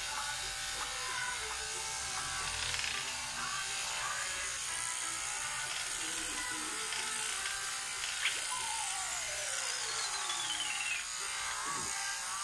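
Corded electric hair clippers buzzing steadily as they cut a child's hair, with music playing alongside and a long falling tone about nine seconds in.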